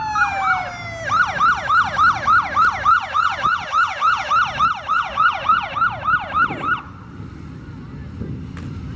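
Police escort siren: a slow falling wail gives way about a second in to a fast yelp, about three and a half sweeps a second, which cuts off near seven seconds. After that a low engine rumble from the passing police motorcycles.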